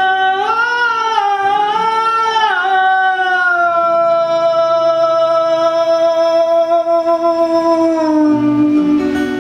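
A man singing one long wordless vowel in a live acoustic song: the note wavers and slides for the first few seconds, then is held steady for about five seconds and drops slightly near the end, with acoustic guitars faintly underneath.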